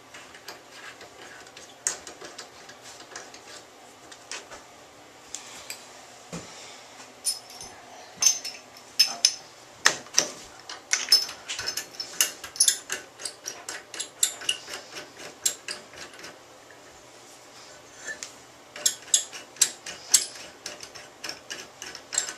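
Small metal tools and tub faucet parts clicking and clinking together in irregular clusters of sharp taps as the faucet valve and handle hardware are worked back into place.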